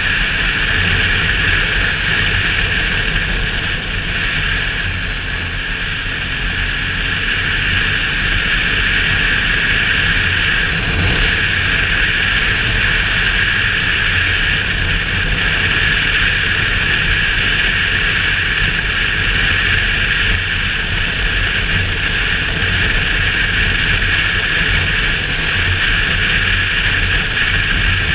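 Steady wind rushing over a helmet-mounted camera's microphone on a BMW R 1200 GS motorcycle at road speed, with the bike's boxer-twin engine and tyre noise as a low drone underneath.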